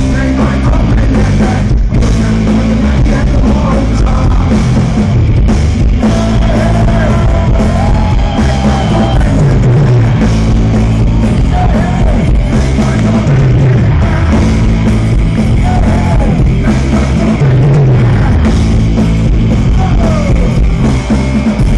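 A rock band playing live, loud and dense: guitars, bass and drums, with a voice singing over it at times. Heard from within the crowd through a phone microphone.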